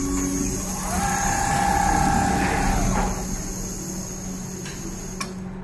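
Richpeace CNC rotary-head sewing machine stitching a duvet: a steady mechanical hum, with a higher motor whine that comes in about a second in and fades out near three seconds, and a light click near the end.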